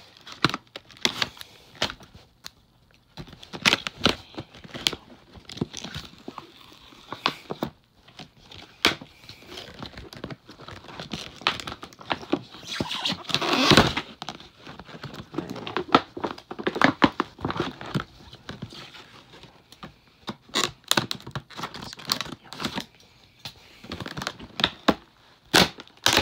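Hard clear-plastic clamshell packaging being cut and pried open by hand: repeated crinkling, tearing and cracking of the stiff plastic with knocks as it is handled, and a louder burst of crackling about halfway through.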